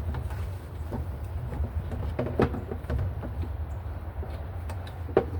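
A few sharp clicks and knocks from intake hoses and air-box parts being handled and fitted, over a steady low rumble.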